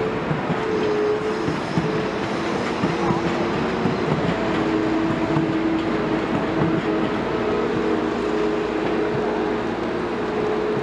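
Hydraulic excavator working: engine and hydraulics running steadily with a humming whine that shifts up and down in pitch, and scattered light knocks and clanks.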